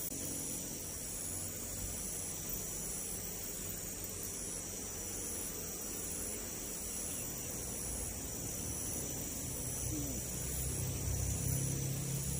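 Insects chirping in the streamside vegetation: a steady high-pitched trill with a pulsing chirp repeating about once a second. Under it runs a low hum that grows louder near the end.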